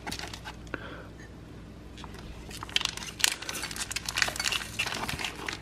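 Plastic sausage package crinkling and crackling as it is handled, sparse at first and dense from about halfway through.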